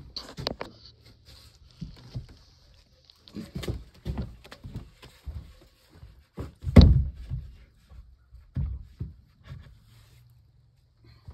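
A series of irregular knocks and thumps, the loudest about seven seconds in.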